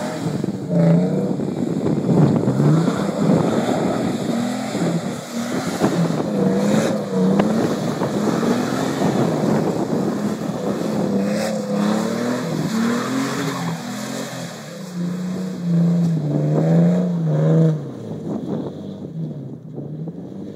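Toyota Tacoma pickup engine revving up and down repeatedly as the truck spins donuts on snow, its pitch rising and falling over a steady rush of noise.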